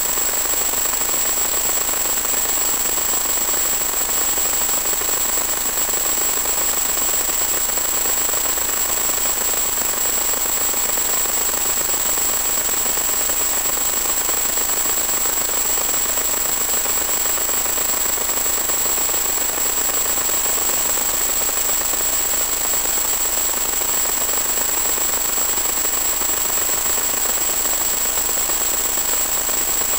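Steady static hiss with a constant high-pitched whine, unchanging in level, from the empty audio channel of an analog 1.2 GHz FPV video link.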